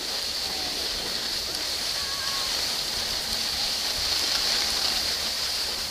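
Steady hiss of skis sliding over packed snow, mixed with wind rushing past the camera's microphone while skiing downhill. Faint voices sound in the background.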